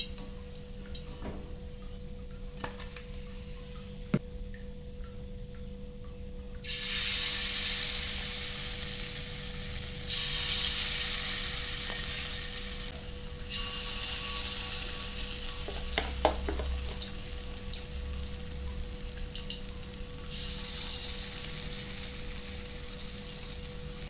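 Corn fritter batter dropped into hot oil in a wok, sizzling suddenly loud about seven seconds in and flaring again with fresh spoonfuls around ten and twenty seconds. A few knocks of a utensil on the wok come before and between.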